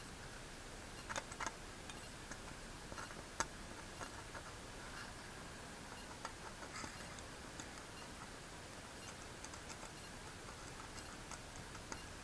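Scattered light clicks and taps from small hand work on a circuit board, over a faint steady hiss; a few come in a quick cluster just after a second in, and the sharpest click comes about three and a half seconds in.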